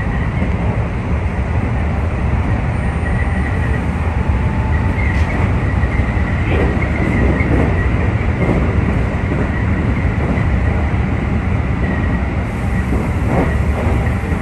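Keikyu electric commuter train running at speed, heard from inside the front car: a steady low rumble of wheels on rail with a thin, steady high whine over it.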